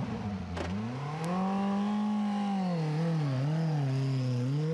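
Super Formula car's 2.0-litre turbocharged four-cylinder engine running again after a stall, revving up as the car pulls away from the pit box. The pitch climbs in the first second, holds, then wavers up and down a few times near the end.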